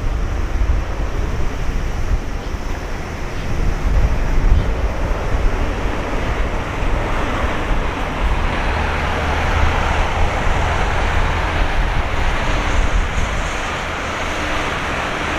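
Jet engines of an Airbus A320 (IAE V2500 turbofans) rolling along the runway, a rushing roar that swells over the last half as the jet nears. Wind rumbles on the microphone throughout.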